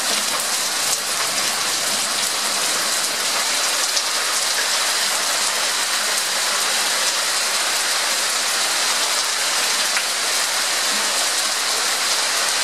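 Hail mixed with rain falling steadily on a concrete patio and yard: an even hiss with a few sharper ticks.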